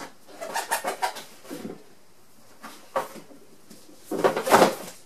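Paperback books being worked out of a tight-fitting cardboard box set: rubbing and scraping of book covers against the cardboard, with a few knocks, and a louder scraping rustle about four seconds in.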